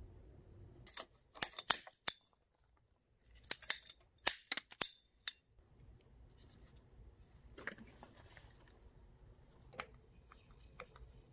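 Ratcheting PVC pipe cutter snapping through half-inch grey PVC conduit: two quick runs of sharp, loud clicks, about a second in and again around four seconds in. A few faint clicks and taps follow.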